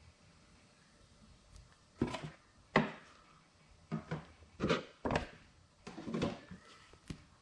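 Handling of a watch presentation box and its packaging: a string of sharp taps and knocks, about eight, as the box is set down, gripped and turned in the hands.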